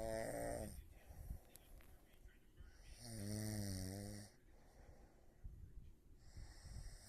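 A sleeping woman snoring: pitched, droning snores about three seconds apart, one at the start, a longer and louder one about three seconds in with a wavering pitch, and another beginning at the very end, with a breathy rush of air between them.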